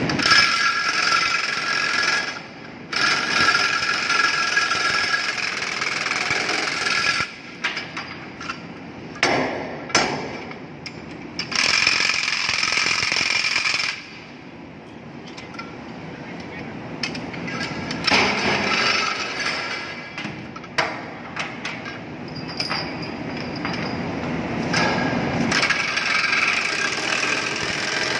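Steel lashing chains and hooks clanking and knocking on a ship's steel deck as cargo is chained down, over steady machinery noise with a high whine that comes and goes.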